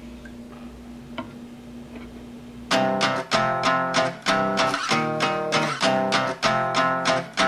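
A faint steady hum with a light click, then, nearly three seconds in, music starts suddenly: strummed guitar chords about twice a second.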